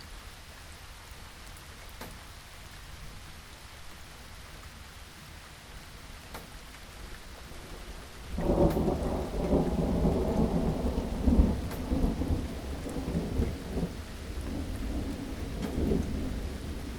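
Steady rain hissing, with a few single drops ticking. About halfway through, a roll of thunder breaks in and rumbles on low and heavy, swelling several times.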